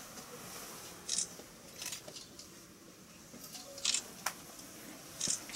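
Camera shutters clicking now and then, five short sharp clicks spread over a few seconds, in a quiet room.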